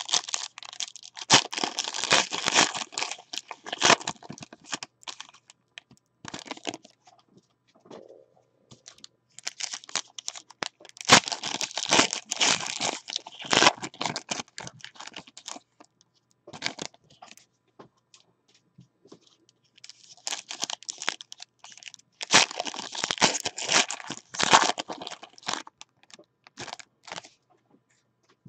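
Foil trading-card pack wrappers crinkling and being torn open, in three main spells of crackling with quiet pauses between them.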